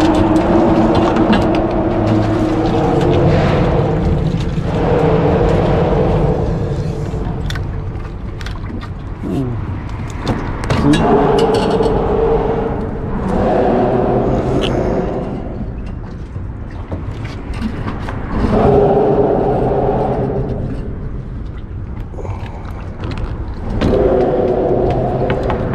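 Traffic crossing the bridge overhead: a steady low rumble, with a passing vehicle every few seconds giving a humming whine from its tyres on the bridge deck that swells and fades. A few scattered clicks and knocks come through as well.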